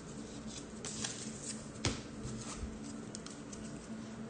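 A stack of trading cards being flipped through by hand: card stock sliding and rustling against itself, with a few light clicks and one sharper snap about two seconds in.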